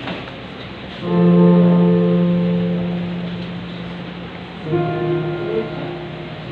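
Background music of slow piano-like keyboard chords: one chord struck about a second in and left to fade slowly, then a second chord a little before five seconds that also fades.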